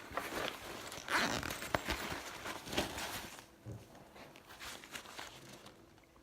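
A backpack's zipper and fabric rasping in short strokes as the bag is handled, with a sharp click about a second and a half in; the handling gets quieter after about three seconds.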